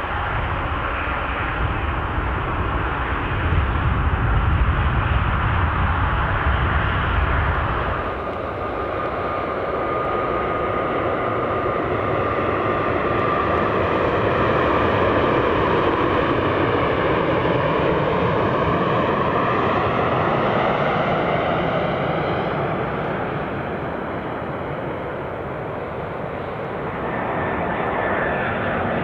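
Jet airliner engines in three takes. First a twin-jet on the runway gives a deep rumble that swells a few seconds in. After a cut at about 8 s, a Boeing 737 on approach passes over, its engine whine gliding down in pitch as it goes by. Near the end another airliner on approach, an Airbus A319, comes in.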